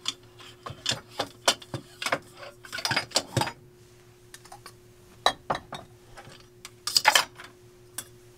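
Glass lava lamp bottles and their parts clinking and knocking as they are handled on a shelf. The clicks and clinks are irregular, come thick in the first few seconds, thin out, and bunch again loudest around seven seconds in.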